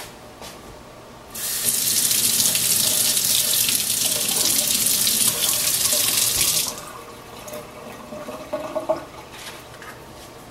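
Kitchen faucet running, water splashing over a strip of birch bark into a stainless steel sink, starting a little over a second in and cut off sharply after about five seconds. Faint handling noises follow.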